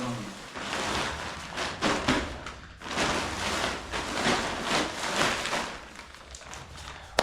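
Synthetic tent fabric rustling and crinkling in uneven swells as the tent is handled and folded.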